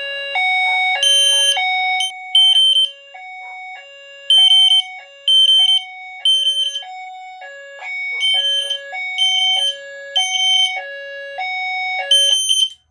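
Fire alarm horn strobes (System Sensor L-series and Spectral Classic, set to the 3000 Hz tone) sounding in alarm. High beeps are layered over a lower tone that alternates between two pitches about twice a second. It all cuts off suddenly at the very end, as the selective silence quiets the horns.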